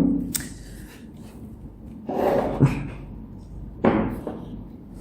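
A few light knocks and short scraping sounds from hand work on a laptop's hinge mount, as excess salt is cleared away.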